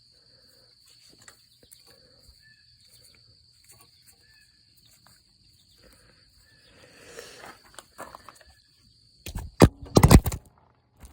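Crickets trilling steadily, with some rustling and handling noise. Just past nine seconds in, a loud clatter of several sharp knocks as a phone is dropped and grabbed again.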